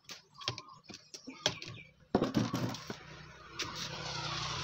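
Scattered clicks and taps as a power amplifier board with its rows of transistors is handled. About two seconds in, a sudden knock is followed by a steady rushing noise with a low hum that grows louder.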